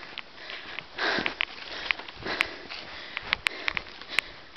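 An out-of-breath person breathing hard close to the microphone, with a few short breaths. There are also several sharp clicks.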